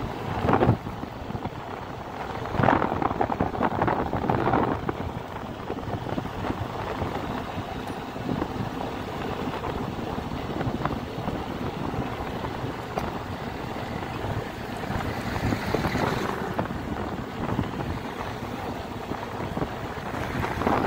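Wind rushing over the microphone of a moving vehicle as it drives along, a steady rush with no distinct engine note, swelling louder in gusts just after the start, around three to five seconds in, and again about sixteen seconds in.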